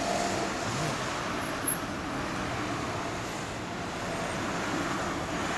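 Steady motor-vehicle noise, an even rushing sound with no clear engine note.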